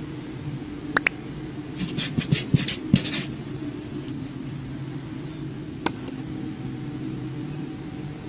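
Toy excavator and truck: a steady low motor hum, with a click about a second in and a quick run of plastic clattering between about two and three seconds, as the excavator's load drops into the toy truck's bed.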